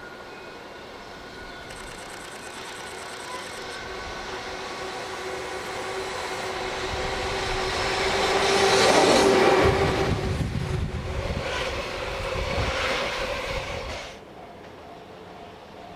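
Electric train approaching and passing close by. Its rumble and wheel noise grow louder, peak about nine seconds in, and cut off suddenly near the end.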